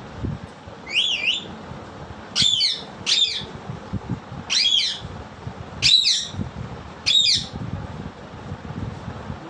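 Pet parrot calling: six short squawking screeches, the second and third close together, the others spaced about a second or more apart.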